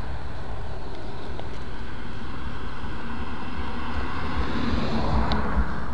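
Wind rumbling on a handheld camera's microphone over steady outdoor noise, with a vehicle passing that swells up about three to five seconds in.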